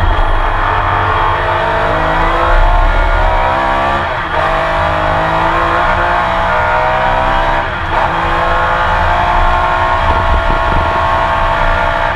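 Porsche 911 RSR's flat-six racing engine heard from onboard, accelerating hard. Its pitch climbs, drops at an upshift about four seconds in and again near eight seconds, and climbs again after each shift.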